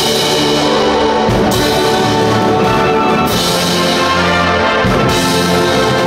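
High school wind band playing a Disney medley live: brass and saxophones hold full chords over drum kit and cymbals, with bright cymbal washes coming in roughly every second and a half.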